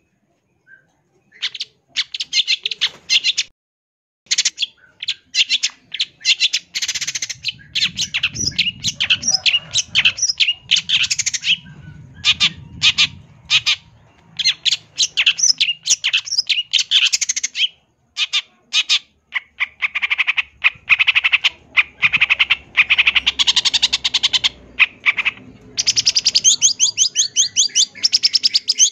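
Long-tailed shrike (cendet) singing a long, fast run of harsh chattering calls packed with quick mimicked notes, starting about a second and a half in and breaking off only briefly, near four seconds and again near eighteen seconds.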